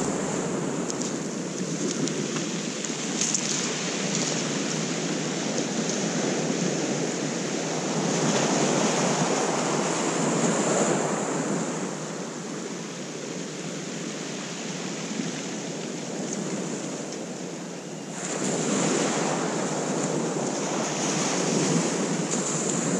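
Surf breaking and washing over a shingle beach, rising in louder surges about 8 seconds in and again from about 18 seconds in, with wind buffeting the microphone.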